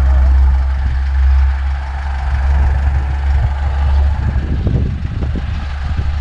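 Police pickup truck's engine idling close by, a steady low hum, with scattered low rustling noises in the last second or two.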